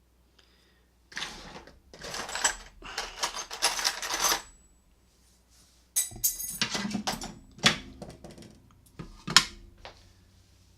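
Metal parts of a cheap door knob lock clinking and rattling as it is taken apart by hand, in two spells of handling that end in a sharp click near the end.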